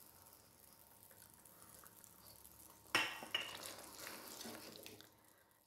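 Curry gravy bubbling faintly as it simmers in a pan. About three seconds in, a spoon knocks against the pan and stirs the garam masala into the gravy, then the sound stops suddenly near the end.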